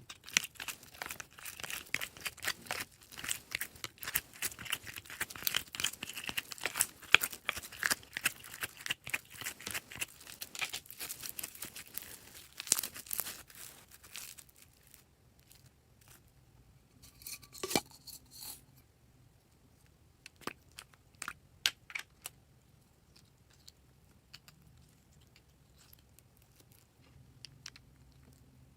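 Purple slime being squeezed and stretched by hand, giving a dense run of crackling, popping clicks for about the first half. After that only scattered pops remain.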